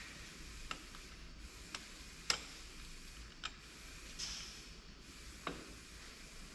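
Light metallic clicks and knocks of ZF 16S 221 truck gearbox parts being fitted by hand, about five scattered strikes with the sharpest a little past two seconds in and a duller knock near the end, over a faint steady hiss.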